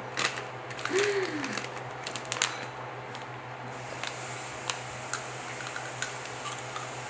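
A snack packet of rice crackers crinkling and rustling as fingers pick through it, a quick run of small crackles at first, then sparser single ticks.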